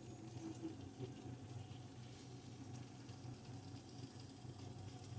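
Faint simmering of creamy carbonara sauce in a skillet, over a steady low hum.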